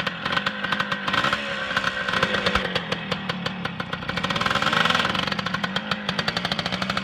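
Yamaha RT100 dirt bike's small single-cylinder two-stroke engine running just after starting, with a rapid even popping exhaust. It revs up and gets louder about four to five seconds in as the bike pulls away.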